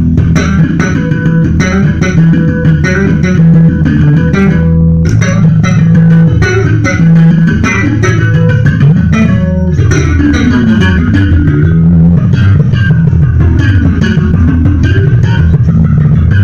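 Electric bass played slap style in a funk-rock instrumental: a busy line of sharp, percussive notes, with several sliding notes about ten to fourteen seconds in.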